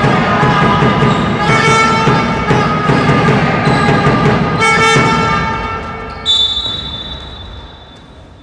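Music with loud sustained chords that restart twice, then fade over the last few seconds. About six seconds in, a referee's whistle sounds one long high note.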